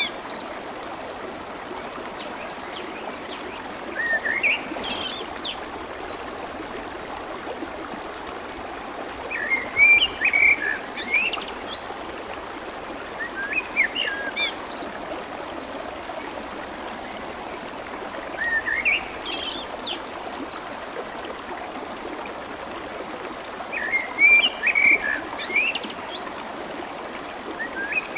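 Steady rush of flowing water, with a songbird's short chirping phrases breaking in every four to six seconds.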